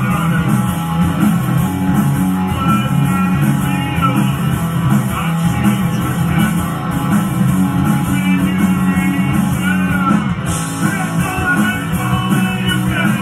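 Live rock band playing: electric guitar, bass and drums together at full volume.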